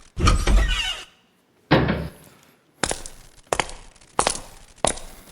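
A run of played-back stage sound effects: a loud, crashing thump in the first second, a dull low thump near two seconds in, then four sharp knocks evenly spaced about two-thirds of a second apart.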